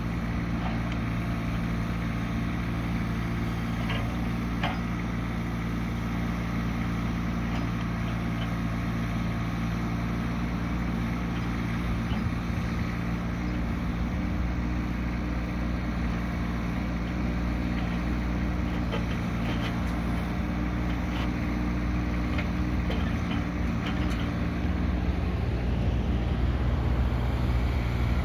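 The 25 hp Kubota Tier 4 diesel of a Stag SE26-Z mini excavator runs steadily while the boom and bucket are worked, with a few faint clinks. Near the end the engine note shifts and grows a little louder as the machine moves on its rubber tracks.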